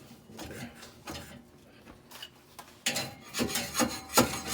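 Metal scraping and rasping in irregular strokes, quicker and louder from about three seconds in: a burr being cleaned off the end of a stainless exhaust pipe.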